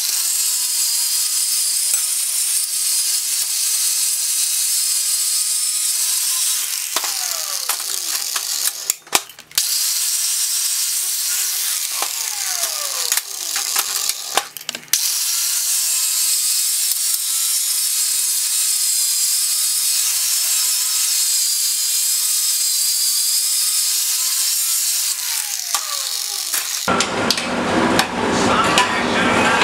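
Angle grinder with a flap disc grinding a steel plate: a steady, hissing grind over a faint motor whine, broken twice by short pauses. Near the end it gives way to a rougher noise with more low sound in it.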